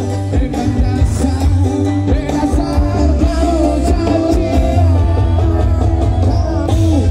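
Live band music with a voice singing, played loud through a large outdoor PA system, with a heavy, pulsing bass.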